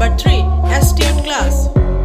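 Hip hop-style background music with a deep bass beat thumping about twice a second and short vocal snippets.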